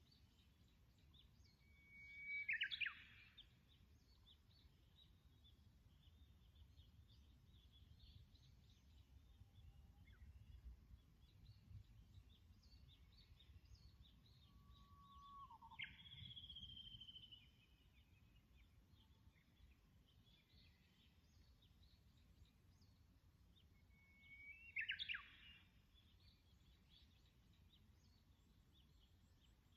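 Wild songbirds singing: two loud, short songs, one about two seconds in and one near the end, a longer whistled phrase in the middle, and faint chirping throughout.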